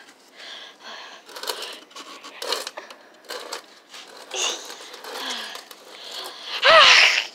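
Plush toys and hands shuffling and knocking on a hard floor with soft, wordless voices, then a loud cry with falling pitch near the end.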